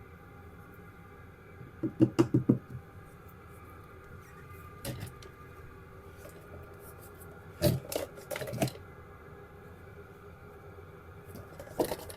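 Hands knocking and clattering about while handling tools and parts: a quick run of five or six knocks about two seconds in, a single knock around five seconds, and another cluster around eight seconds, over a faint steady hum.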